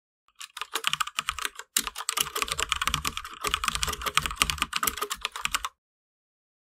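Rapid computer-keyboard typing clicks, a typing sound effect laid over a title being typed out on screen. It starts just after the beginning, breaks off briefly about a second and a half in, then runs on and cuts off suddenly near the end.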